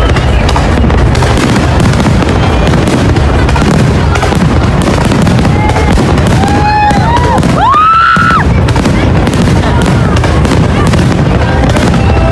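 Aerial fireworks shells bursting in rapid, continuous succession, a loud dense mix of booms and crackle. Some whistle-like tones rise and fall near the middle.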